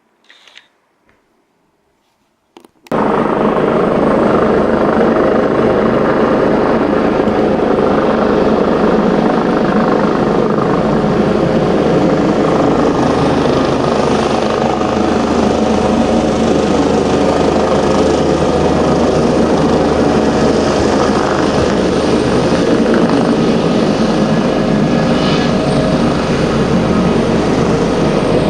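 A few faint clicks, then about three seconds in a loud, steady running noise from a Eurocopter helicopter cuts in suddenly and holds unchanged.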